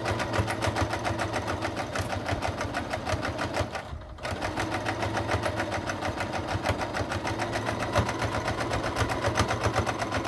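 Electric sewing machine running, its needle stitching rapidly along a strip of fabric in a fast, even rhythm. It stops briefly about four seconds in, then starts stitching again.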